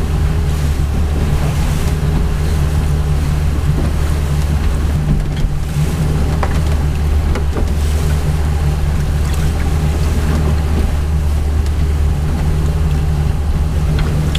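Boat engine running steadily with a constant low hum, the boat moving slowly under way with wind and water rushing past.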